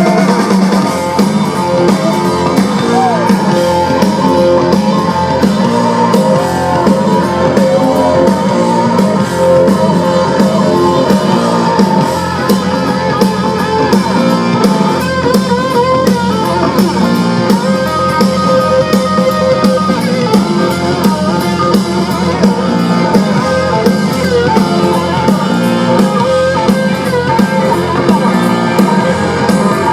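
Live blues-rock band playing an instrumental break: electric guitar with bending notes over drums, bass and keys.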